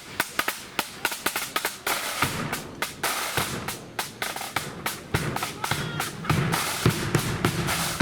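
Blood-and-thunder flute band striking up: sharp, rapid snare drum strokes, then flutes come in about two seconds in and the bass drum fills out the sound from about halfway, growing louder.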